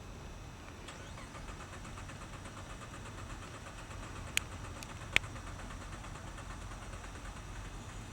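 A car engine sound, a steady low hum, with two sharp clicks a little under a second apart about halfway through.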